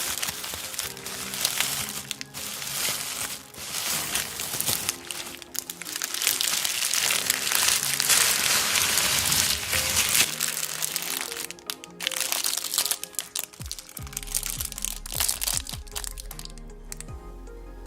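Dense crinkling and crunching, like chewing or crushing crunchy candy, over background music with a simple stepped melody. The crunching thins out over the last few seconds.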